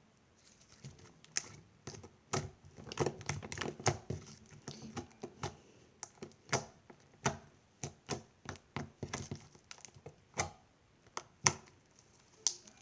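Fingers poking and squeezing slime, making irregular sharp clicks and small pops, sometimes in quick clusters.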